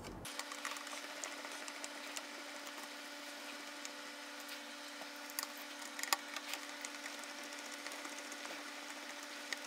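Small screwdriver turning screws into a 3D-printed plastic model jet-engine core: scattered faint clicks and ticks of the driver and plastic parts, a few sharper ones about midway, over a steady hum.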